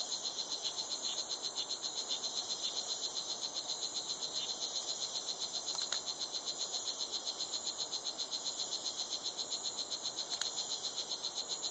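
Recorded advertisement call of a male strawberry poison frog played back through a small speaker: a continuous high-pitched buzzing made of rapid, evenly spaced pulses.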